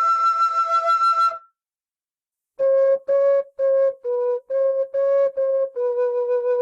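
Setanta low E whistle played solo. A high note is held and stops about a second and a half in. After a short silence comes a run of short, separate notes in the whistle's lower register, ending on a longer held note.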